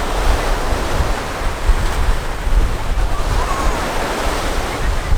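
Wind buffeting the microphone, a fluctuating low rumble over a steady rush of surf.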